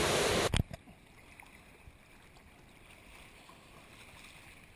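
Loud rushing surf-and-wind noise that cuts off abruptly about half a second in, leaving only a faint steady hiss.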